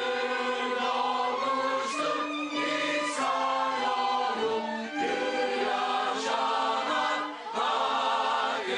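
Mixed choir of men's and women's voices singing held notes in harmony, accompanied by violins, the phrases breaking and moving on about every two to three seconds.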